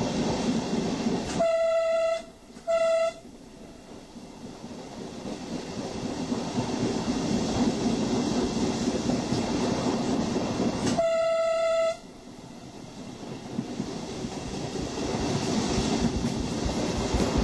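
Diesel train running, heard from on board with steady track and wind noise. Its horn sounds two short blasts, the first about a second and a half in, then one longer blast about eleven seconds in.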